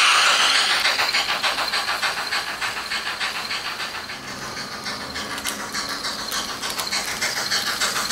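Sound-equipped H0 scale model steam locomotive running with its decoder playing steam hiss and chuffing, over a fast, even clicking of the model's wheels on the track. The sound fades a little around the middle and grows loud again near the end as the engine comes back close.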